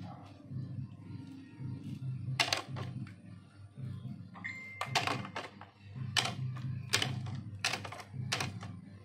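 A plastic toy car set down and knocked against a hard board: about half a dozen sharp clacks, the first about two and a half seconds in and the rest coming roughly a second apart in the second half.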